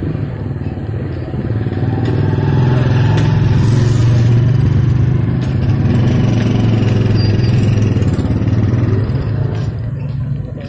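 Motorcycle engine of a tricycle (motorcycle with sidecar) running close by: a steady low drone that grows louder about two seconds in and fades near the end.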